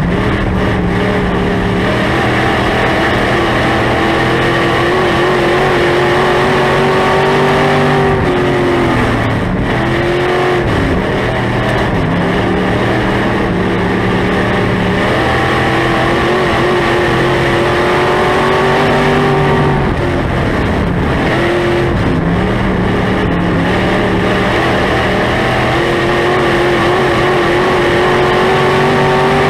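SportMod race car's V8 engine running hard, heard from inside the car. The revs drop and climb back several times as the throttle is lifted for the turns and reapplied on the straights.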